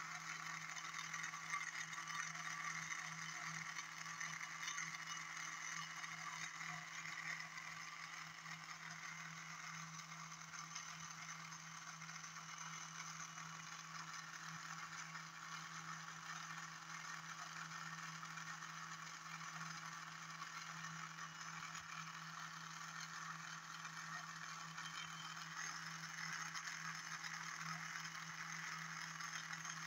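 Bedini SHK pulse motor/generator running: its magnet rotor spins at a constant speed, giving a steady low hum under an even higher-pitched whir.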